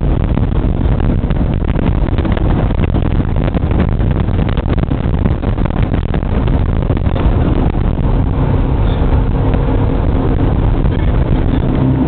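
Jet boat under way, heard from on board: a loud, steady rush and rumble of engine, water and wind on the microphone. A low engine hum comes through more clearly in the second half.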